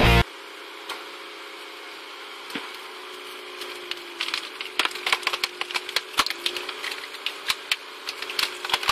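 Screw cone log splitter turned by a jacked-up car's front wheel hub, running with a steady hum. From about four seconds in, wood cracks and splinters in quick irregular snaps as the cone bores into a log.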